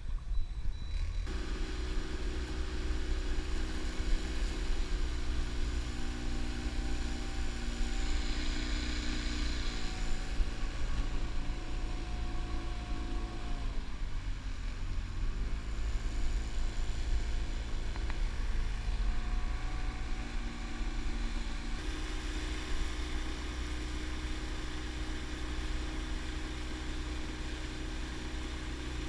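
Small outboard motor running under way, pushing the boat along with water rushing past the hull. The engine note rises about a second in, sags briefly about halfway through and picks back up, and changes again near the end.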